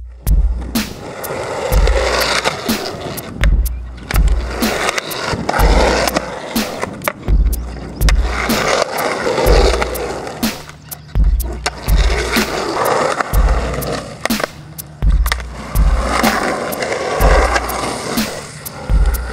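Skateboard wheels rolling on concrete, with sharp clacks of the board, under background music with a heavy bass beat.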